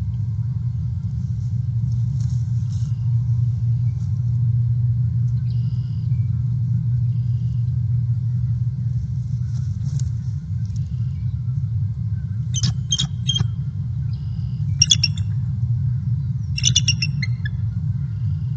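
Bald eagle calling in short, high, repeated chitters, three bouts in the second half, over a steady low rumble.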